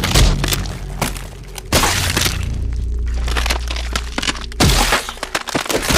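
Dense crackling and cracking noises over a low rumble, with heavier hits about a quarter second in, near two seconds and near five seconds.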